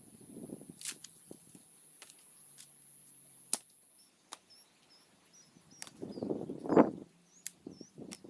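Dry twigs snapping and dry leaves and brush rustling, as when someone is gathering firewood, with a louder crunch about two-thirds of the way in. Faint high chirps come in during the second half.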